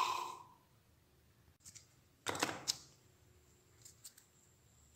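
A polishing motor's hum dies away in the first half-second. Then it is almost quiet, with a few light clicks and scrapes as the abrasive wheel is handled and changed on the motor's tapered spindle, the largest cluster a little over two seconds in.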